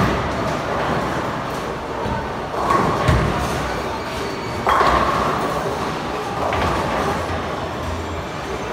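Bowling alley lanes in play: bowling balls rolling with a low rumble and pins crashing several times, the loudest crash about five seconds in.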